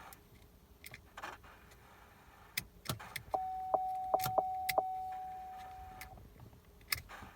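Key being turned back and forth in the ignition, giving sharp clicks. About halfway through, a steady electronic warning tone sounds and fades out over about three seconds while the clicks continue. The truck does not crank, because of a faulty ignition switch.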